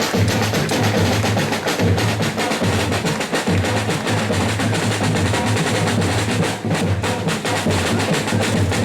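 Fast, dense drumming with sharp clicking strokes over a pulsing bass beat; it stops abruptly at the very end.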